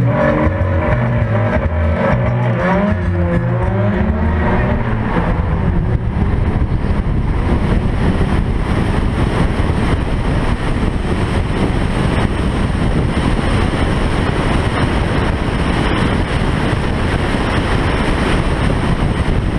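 A tuned Audi TTS's turbocharged 2.0-litre four-cylinder pulls hard from a standing start, its pitch rising in repeated sweeps through the gear changes over the first few seconds. After that comes a steady, dense rush of engine and wind noise at speed, heard through the hood-mounted camera.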